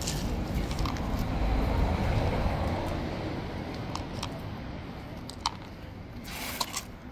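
Low rumble of a passing vehicle, fading away. A few light clicks come after the middle, with a short rustle near the end.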